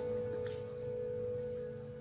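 Background music: one held ringing tone that slowly fades after a fuller chord has ended.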